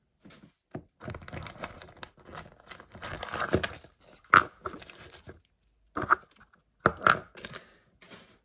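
Small plastic packets crinkling and tearing as miniature-toy blind packages are opened by hand. There is a sharp click about four seconds in and a few more near the end.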